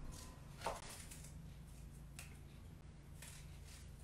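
Faint knife sounds from apple halves being cut with paring knives, in the hand and on a wooden cutting board: a few soft clicks and scrapes, the clearest about two-thirds of a second in, over a low steady hum.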